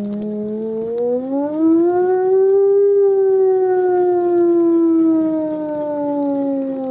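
Hand-cranked siren wailing with several overtones. Its pitch climbs over the first two seconds as the crank is turned faster, then slowly sinks.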